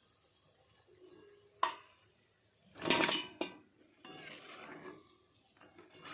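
Metal kitchen utensils and cookware clinking and scraping: a sharp ringing clink about one and a half seconds in, a louder clatter around three seconds, then scraping.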